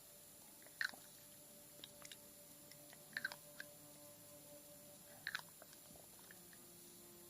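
Slow ASMR tapping: a handful of soft, short taps and clicks, a second or two apart, faint over a light steady hiss.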